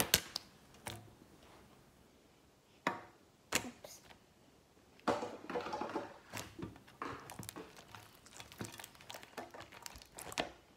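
A sharp hand clap at the start, then pink glitter slime being squeezed and stretched by hand, giving scattered small crackles and squishing pops that come thicker from about five seconds in.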